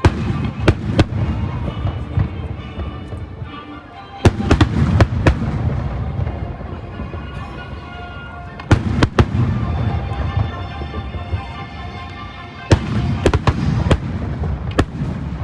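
Aerial fireworks bursting in clusters about every four seconds, sharp bangs over a low rolling rumble, with music playing.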